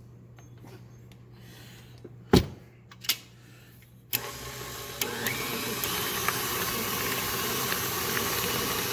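Two sharp knocks a little over two seconds in, then a KitchenAid stand mixer's motor starts suddenly about four seconds in and runs steadily, getting louder about a second later. Its flat beater is working freshly churned butter in the stainless steel bowl.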